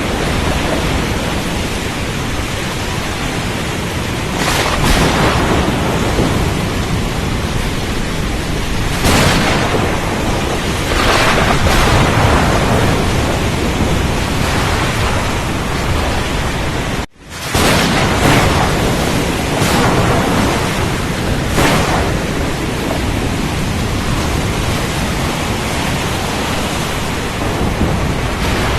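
Storm at sea: a steady heavy rush of rain and rumble, with several louder surges. About two-thirds of the way through the sound cuts out for an instant and comes back.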